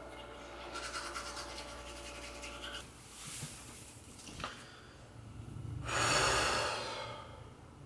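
A toothbrush scrubbing over a steady low hum for the first few seconds. Then cloth rustling as a shirt is pulled off, and a loud breathy rush about six seconds in, lasting about a second.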